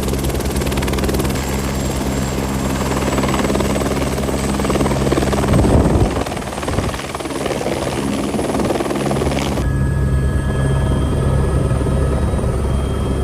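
Helicopter engine and rotor running steadily, with a loud rushing surge about six seconds in.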